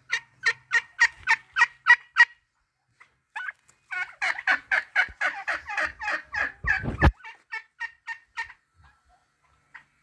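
Domestic turkeys calling, a run of quick repeated notes about four a second that stops, then comes back thicker and slows before dying away. A brief thump about seven seconds in.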